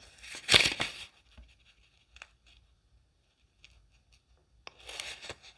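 Cardstock Lenormand cards being handled: a sliding swish about half a second in and another near the end, with a few faint taps between.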